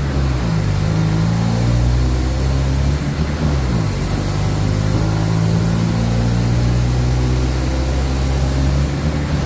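Mercedes-Benz OF-1722M bus's four-cylinder turbodiesel engine running under load, heard from inside the cabin. The revs climb early on, dip once about three and a half seconds in, then hold steady.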